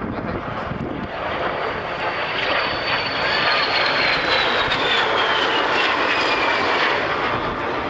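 de Havilland DH-115 Vampire jet flying past with its Goblin turbojet running: the noise swells about two seconds in, and a high whine falls in pitch as the jet passes and moves away.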